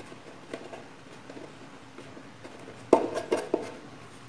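Hands handling wiring and a small switch inside a plywood table-saw base: light clicks and rustles, then three or four sharp knocks against the wood in quick succession about three seconds in.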